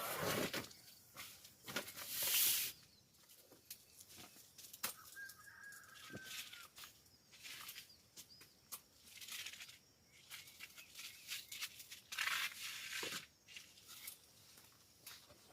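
Intermittent rustling and handling noises, like fabric or packaging being moved and torn, with a few sharp clicks and louder bursts about two seconds in and near twelve seconds. A faint high whistle sounds for about a second and a half around five seconds in.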